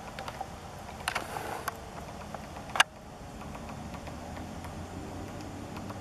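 Male downy woodpecker pecking and tapping at bark while foraging for insects: scattered light taps, a quick cluster of sharper taps about a second in, and one loud sharp tap near the middle, over a faint steady low background hum.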